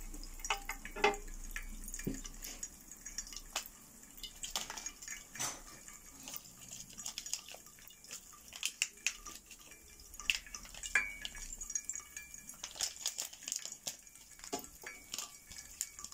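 Popping candy crackling in a ceramic mug of water: many small, sharp pops and clicks at irregular intervals.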